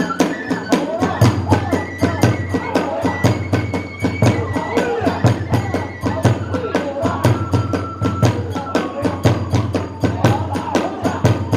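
Hiroshima kagura ensemble playing: a fast steady beat of drum and hand-cymbal strikes under a high bamboo flute melody.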